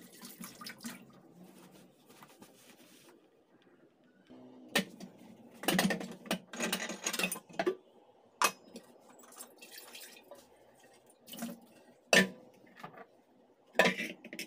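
Kitchen handling noises: an aluminium cooking pot and kitchenware knocking and clinking as they are moved and set down on a tiled counter. There are several sharp knocks spread through, and a couple of seconds of busier clatter a little before halfway.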